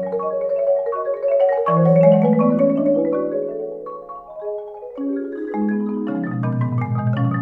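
Marimba quartet music: rolled mallet notes held in chords, with lower bass notes coming in during the second half.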